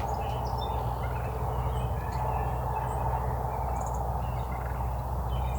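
Wild turkeys gobbling, with small birds chirping briefly over a steady low hum.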